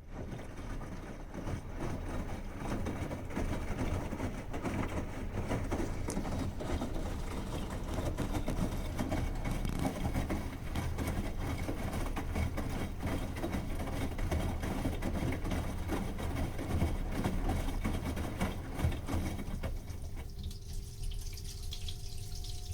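Bosch washing machine taking in water at the start of a wash: a steady rushing and splashing of water, which about twenty seconds in changes to a quieter hiss with a faint steady hum.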